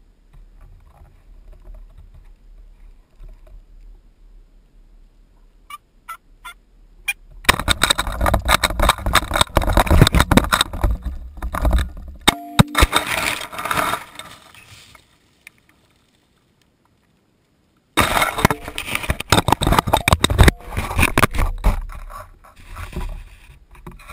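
Wild turkey sounds mixed with loud, dense rustling and clattering in two stretches, separated by a few seconds of dead silence. A few sharp clicks come just before the first stretch.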